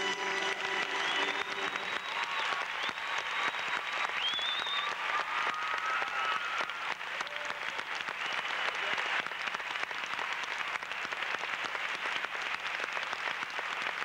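Theatre audience applauding, a steady dense clapping of many hands, with a few high whistles over it in the first half.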